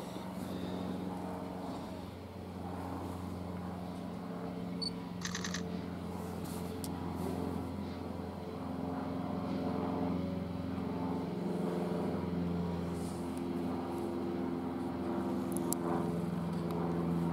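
A steady engine hum made of several held low tones that shift slightly in pitch, like an idling motor, with a brief rattling click about five seconds in.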